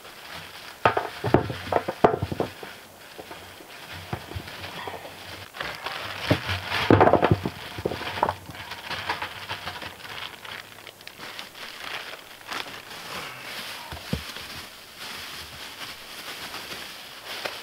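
Plastic bag crinkling and rustling, broken by irregular knocks and clunks against a plastic barrel as bags of table scraps are handled and emptied into it.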